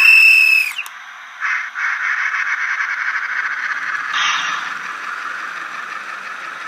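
A model train's whistle sounds, two tones at once, ending about a second in. Then the model locomotive sets off and runs past with a steady rattling buzz from its motor and wheels on the track, a little louder around the middle.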